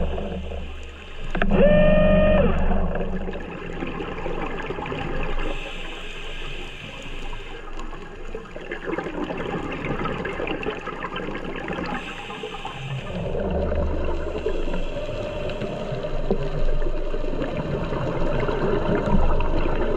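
Underwater sound heard through a camera housing: gurgling bubbles and rushing water, the diver's regulator exhaust. About two seconds in, a brief steady electric whine with overtones, the diver propulsion vehicle's motor.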